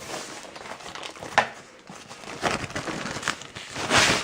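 Packaging crinkling and rustling as a speaker is unwrapped from its box, with a sharp click about a second and a half in and the loudest rustle near the end.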